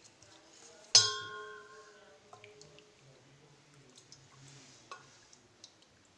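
A spoon strikes the stainless steel bowl about a second in, one clang that rings on for about two seconds. A few faint taps and small water sounds follow as the utensil moves in the bowl of hot water.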